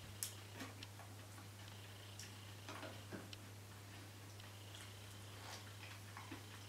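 Faint, irregular light clicks of wooden chopsticks against a metal pot and bowl while eating, over a steady low hum.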